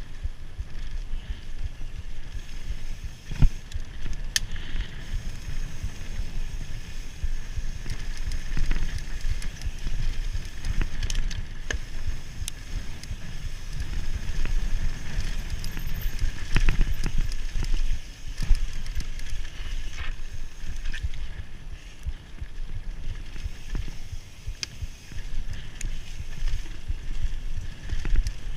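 Mountain bike descending a rough dirt trail at speed: a constant uneven rumble of tyres and bike over the ground, with frequent rattles and knocks over bumps, the sharpest about three and a half seconds in.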